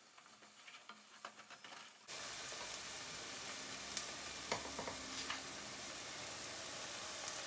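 Onion, garlic and tomato paste frying in butter in a pot, with stirring. It starts faint with light scraping clicks, then turns to a steady, louder sizzle about two seconds in, with a few sharp clicks of utensils against the pot.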